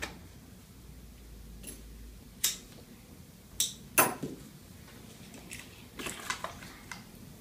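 Sharp clicks and taps of small objects handled on a tabletop, the loudest about four seconds in, then a quick run of clicks near the end.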